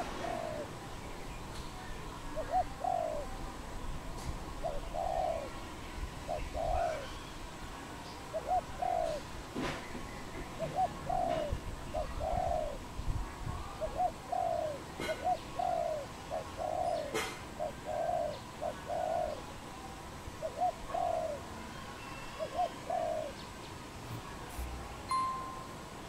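Spotted dove cooing: a long run of short, soft coo notes in groups of two or three, repeated about once a second, stopping a few seconds before the end.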